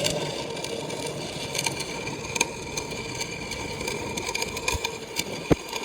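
Scattered clicks and knocks over a steady hum, with one sharp knock about five and a half seconds in.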